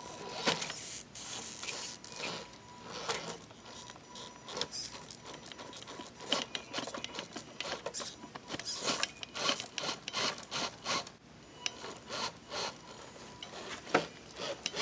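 Radio-controlled scale rock crawler's tyres scrabbling and scraping over rock and wood as it climbs, in an irregular run of scrapes and clicks, with a faint steady motor whine in the first few seconds.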